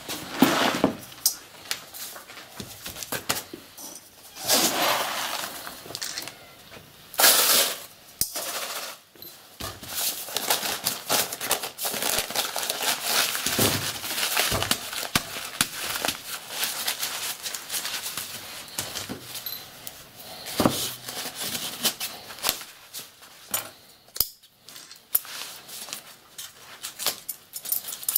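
Brown kraft paper crinkling and rustling as hands wrap and tie a paper-cased firework shell with string, with irregular small clicks and knocks of handling on the bench. Louder bursts of rustling come about 4 and 7 seconds in.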